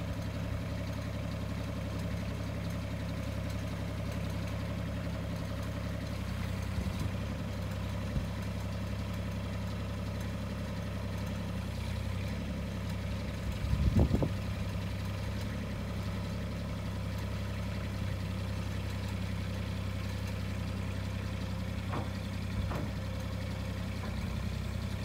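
Cat 302.5C mini excavator's diesel engine idling steadily, with one brief louder knock about halfway through.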